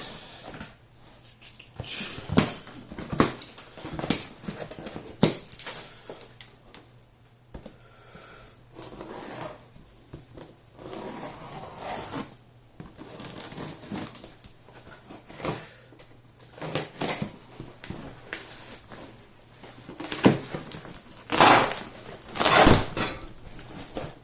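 Packaging rustling and parts knocking and clinking at irregular intervals as boxes of kit parts are unpacked, with a cluster of louder knocks near the end.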